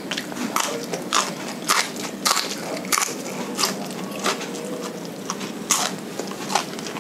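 Close-up eating sounds of raw papaya leaves and stalk being bitten and chewed, with sharp, irregular crunches roughly every half second to second.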